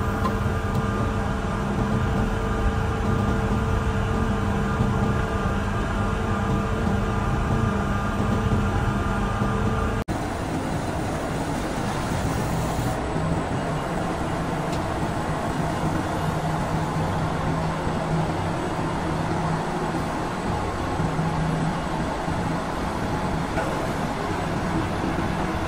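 The diesel engine of a Grove TM1500 hydraulic truck crane runs steadily. About ten seconds in, the sound cuts to a rougher, noisier drone over a steady low hum.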